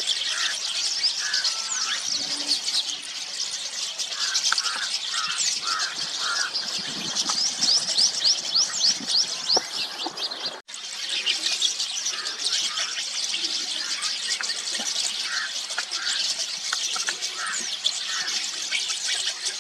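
A flock of rosy starlings chattering: a dense, continuous mass of overlapping high chirps, whistles and rasping notes, broken by a momentary gap a little past halfway.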